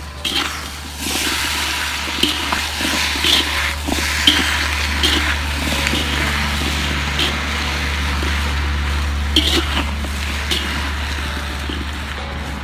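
Star gooseberries being tossed and mixed by hand with sugar in a metal pot: a steady rustling rush of the fruit, with scattered clicks of berries knocking against the metal, over a low steady hum.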